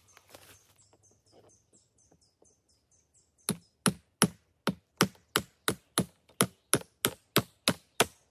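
Wood being chopped with quick, even blows, about three a second, starting about three and a half seconds in.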